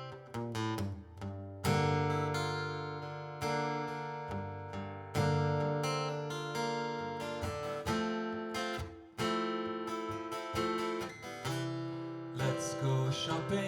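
Solo acoustic guitar playing an instrumental passage between sung lines of a song: chords struck about every one and a half to two seconds and left to ring out.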